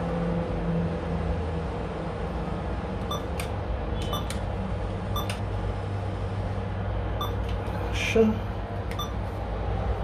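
ATM keypad beeping as buttons are pressed: about nine short electronic beeps, some in quick pairs, starting about three seconds in, over a steady low hum. A brief rustle about eight seconds in.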